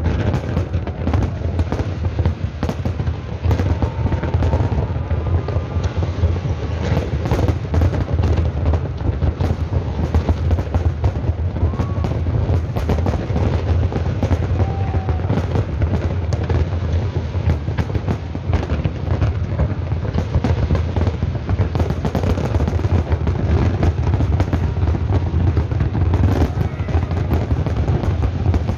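Dense aerial fireworks barrage: many shells bursting in quick succession, a constant crackle over deep booms, with no let-up.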